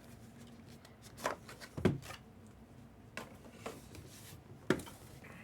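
Packaging of mystery baseball boxes being handled: a handful of short, sharp clicks and rustles, the loudest about two seconds in and another near the end.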